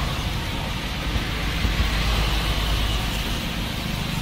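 Steady street background noise: a low traffic-like rumble with a hiss over it.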